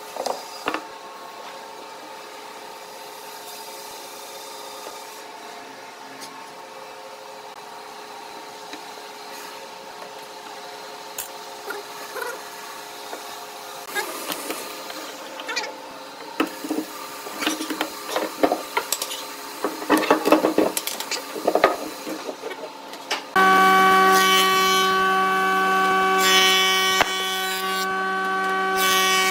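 A faint steady machine hum, then irregular knocking and clattering of wooden blocks being handled and clamped in pipe clamps. About three-quarters of the way through, the loud, steady whine of a thickness planer running cuts in abruptly.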